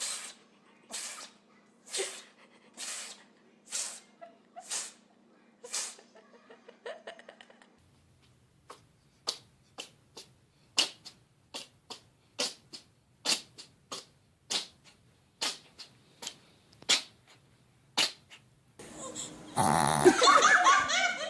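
A pet sneezing over and over in short, sharp sneezes: about eight at roughly one-second spacing, then, after a change of background, about fifteen quicker ones. Near the end a much louder, busier stretch of sound begins.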